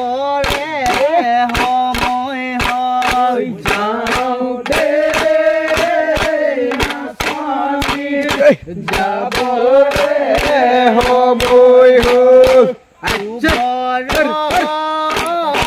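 Bihu song: voices singing long, wavering held notes over a fast, steady percussion beat of about four strokes a second, breaking off briefly twice.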